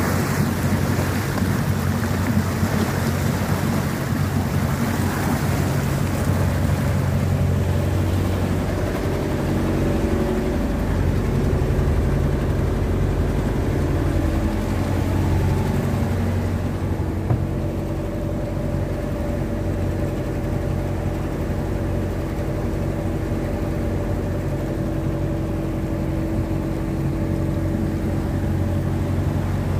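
Motor boat engine running steadily under way, with the rush of the wake and wind. The rush is strongest for the first several seconds, after which the engine's steady hum is the main sound.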